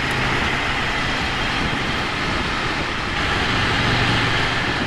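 Ducati Monster 797's air-cooled L-twin engine running at a steady cruise under heavy wind rush on the action camera's microphone. The engine note shifts slightly about three seconds in.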